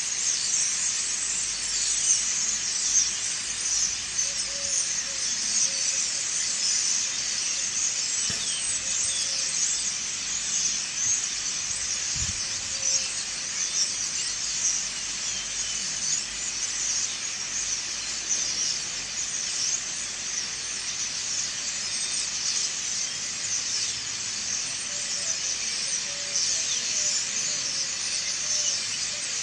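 A large flock of small birds chirping all at once in a dense, continuous, high-pitched chorus, steady in loudness throughout.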